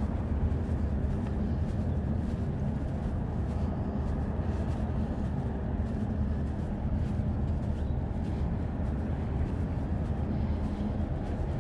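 Steady low rumble of wind buffeting the microphone while walking, with faint footsteps.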